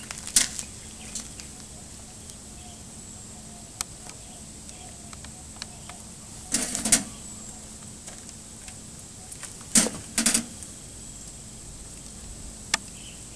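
Veterinary supplies being handled by gloved hands: scattered clicks, taps and short rustles of syringes, vials and plastic packaging, with small clusters of them about six and ten seconds in, over a faint steady hum.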